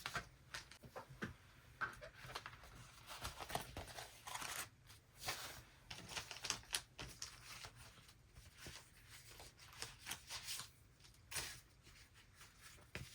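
Faint rustling and crinkling of paper craft items being handled, with scattered light taps and clicks.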